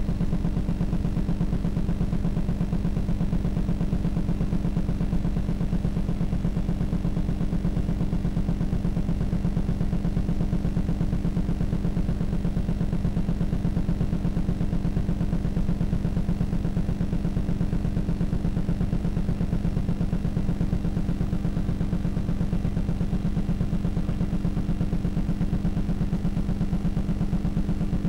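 Steady low hum that holds unchanged throughout, with nothing else heard: noise on the soundtrack of an old camcorder tape rather than a sound of the scene.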